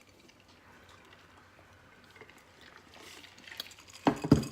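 Faint eating sounds, then near the end a short, loud burst of slurping and gulping from a drink.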